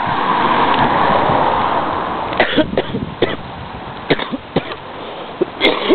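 A car passing close by, its tyre and engine noise swelling and fading over the first two seconds or so, followed by scattered knocks from walking and handling the phone, and a cough near the end.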